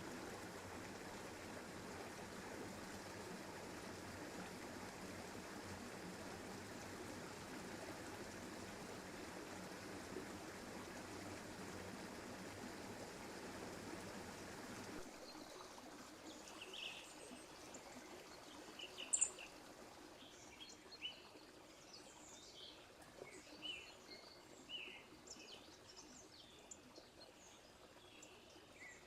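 Steady rushing of a forest stream. About halfway through it cuts off, and small birds chirp and call in short, scattered notes over a quiet background.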